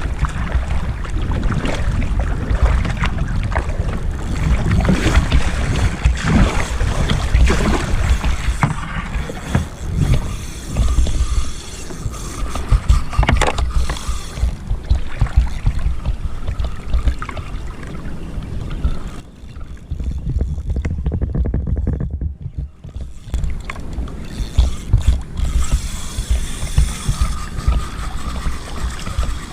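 Water sloshing and splashing against a kayak hull on the open sea, with wind rumbling on the microphone; it eases briefly about two-thirds of the way through.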